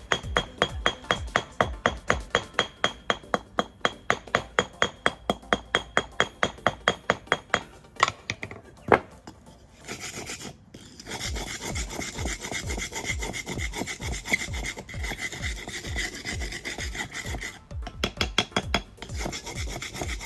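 Old, hard mortar being scraped and chipped off a reclaimed brick by hand. For about the first eight seconds there are quick, even strokes, about four a second. After a short pause it becomes a steadier rasping scrape.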